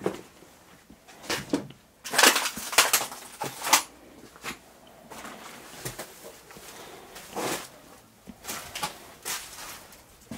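Footsteps crunching and scuffing over debris in irregular steps, with the loudest cluster of crunches a couple of seconds in.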